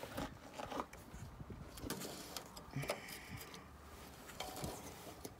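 Faint handling noises in an old truck's engine bay: scattered light clicks and brief rustles as a hand moves over the radiator and nearby parts.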